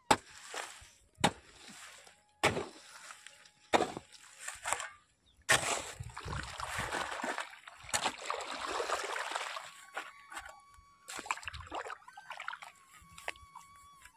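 A spade strikes into wet mud with sharp knocks about a second apart. Then come longer stretches of water and mud sloshing and splashing as the soil is dragged and packed into the ridge of a flooded irrigation basin.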